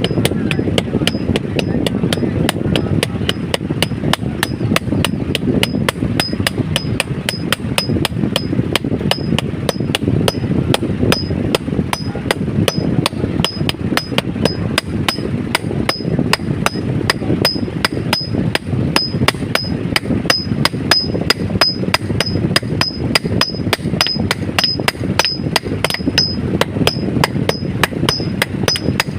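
Blacksmith's hammer striking metal on an anvil in a fast, steady rhythm, about three blows a second, each with a short high ring. A steady low rumble runs underneath.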